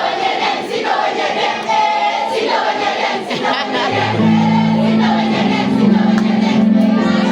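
A group of voices singing together, with low steady bass notes coming in about four seconds in.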